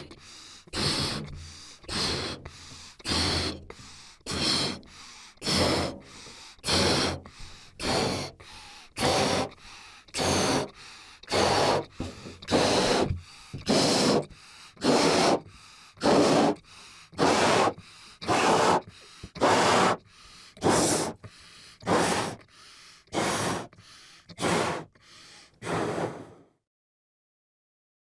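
Cartoon balloon-inflating sound effect: a long run of short, breathy puffs, evenly spaced at about three every two seconds, stopping abruptly a second or two before the end.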